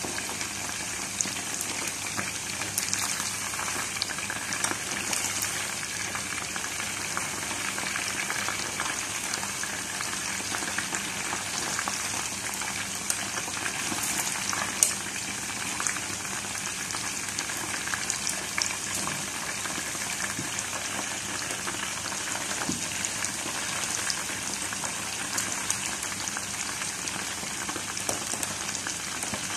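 Chicken pieces deep-frying in a pot of hot oil: a steady sizzle and bubbling, dotted with fine crackles. One louder sharp click about halfway through.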